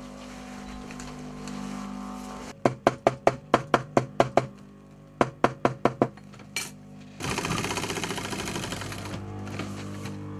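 A small hammer tapping a leather jacket's seam flat: about ten sharp, quick blows, a short pause, then five more. Near the end a sewing machine stitches in a fast, even rattle for about two seconds.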